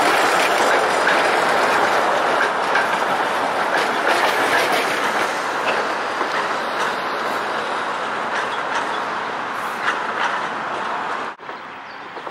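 Articulated electric tram passing close by, its wheels rolling and clicking over the rails. The sound fades slowly as the cars go past, then drops suddenly to a much quieter background near the end.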